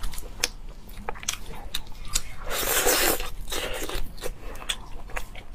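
Close-miked eating: a person biting and chewing meat off a braised goat leg, with many short wet mouth clicks and smacks and a longer noisy stretch a little past halfway.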